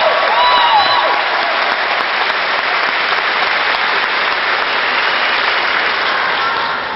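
Large audience applauding steadily, with a few whoops and cheers in the first second; the applause eases off slightly near the end.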